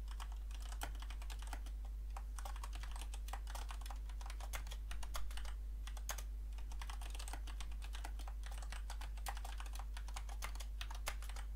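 Typing on a computer keyboard: quick, irregular key clicks with a few short pauses, over a steady low hum.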